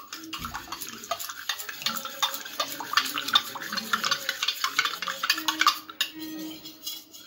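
Metal spoon stirring quickly in a steel tumbler, clinking rapidly against its sides as condensed milk is dissolved in hot water. The clinking pauses for about a second near the end.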